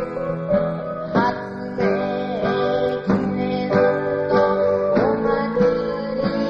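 Acoustic guitar strummed in a steady rhythm, about three strokes every two seconds, under a sustained melody line.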